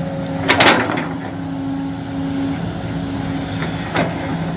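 Small motor of an RC excavator running with a steady hum. A loud clatter comes about half a second in, and a sharp click near the end.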